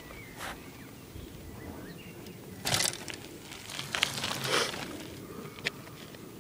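Bicycle tyres crunching over a loose dirt track as a rider passes close by, with a loud rush of noise about two and a half seconds in and another around four seconds. Birds chirp in the background.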